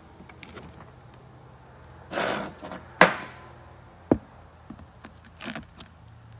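Handling noises in a workshop over a faint low hum: a scrape about two seconds in, a sharp click about a second later, then a low thump and a short rustle.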